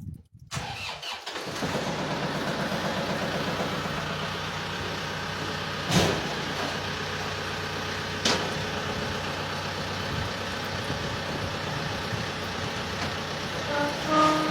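An engine starting about half a second in and then running steadily. Two sharp knocks cut across it about six and eight seconds in.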